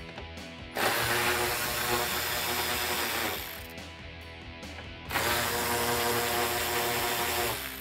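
Cordless electric ratchet with a 10 mm socket running in two bursts of about two and a half seconds each, spinning off the nuts that hold the grille to the hood.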